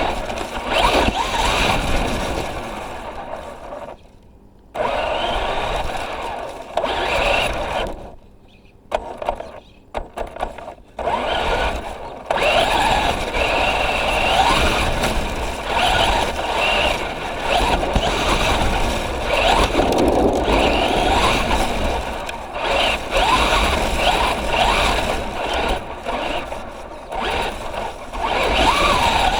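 Traxxas Rustler 4x4 RC truck driving over the yard: its electric motor whines up and down with the throttle over rough driving noise. It cuts out briefly about four seconds in and a few times between eight and eleven seconds, then runs on steadily.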